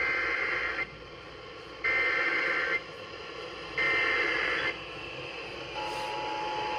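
Emergency Alert System SAME header: three short bursts of digital data tones, each just under a second long and about a second apart. Near the end the steady two-tone EAS attention signal begins. It is heard as received over FM radio, with hiss underneath.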